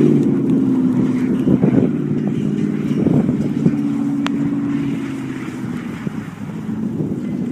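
2000 Ford SVT Lightning's supercharged 5.4-litre V8 revving hard while the pickup spins donuts in the snow on its rear wheels. The engine note falls off right at the start, then holds fairly steady with brief surges, and sags somewhat near the end.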